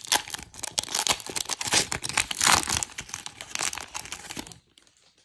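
Foil wrapper of a trading-card pack crinkling and tearing as the pack is opened; the dense crackling stops about four and a half seconds in.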